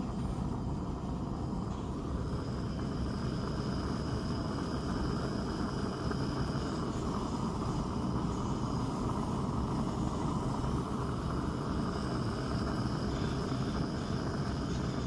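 Portable butane gas heater's burner running on a high flame: a steady rushing noise of burning gas, with a faint high-pitched whine above it.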